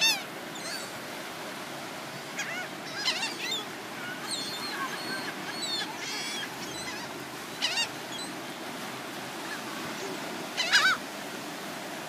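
A flock of gulls calling: short, harsh calls in scattered clusters, loudest at the very start and again near the end.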